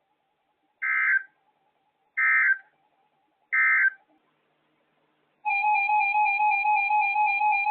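Emergency Alert System end-of-message code: three short, warbling digital data bursts a little over a second apart, signalling that the severe thunderstorm warning message is over. About five and a half seconds in, a steady, loud two-tone EAS attention signal starts.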